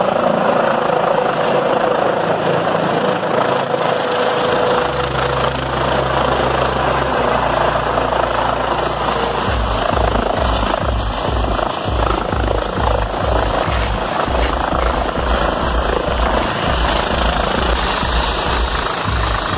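Air-ambulance helicopter of the Eurocopter EC135/H135 type, with a shrouded fenestron tail rotor, landing close by and then running on the ground with its rotors turning. It gives a loud, steady rotor and turbine noise with a thin high whine. Background music with a bass beat comes in partway through.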